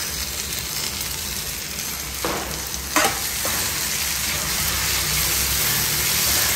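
Onions and freshly added chopped tomatoes sizzling in a kadai while being stirred with a perforated metal ladle. The ladle knocks sharply against the pan twice, about two and three seconds in, and the sizzle grows a little louder toward the end.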